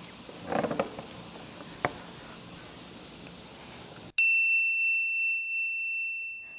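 A single bell-like ding about four seconds in, ringing on as one clear steady tone while its higher overtones die away within a second. Before it, faint room hiss with a brief murmur and a click.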